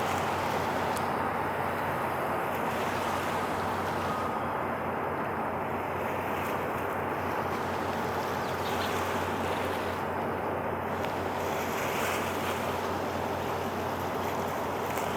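Steady outdoor wind and water noise with a constant low hum underneath, unchanging throughout.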